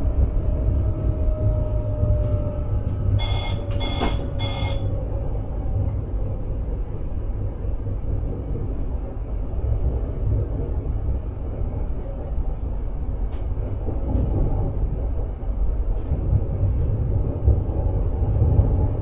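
Running noise inside the driver's cab of an NS Sprinter electric train: a steady low rumble of wheels on rails, with a whine that slowly falls in pitch over the first few seconds. About three seconds in, three short two-tone electronic beeps sound in the cab.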